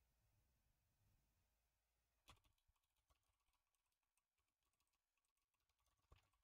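Faint computer keyboard typing: scattered light key clicks, with sharper keystrokes about two seconds in and again near the end.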